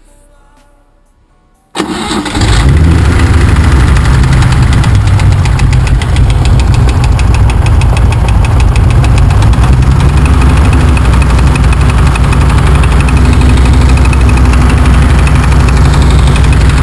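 BMW M30 straight-six engine starting suddenly about two seconds in, then idling steadily with a rapid, even ticking knock: the engine knock the mechanics are chasing.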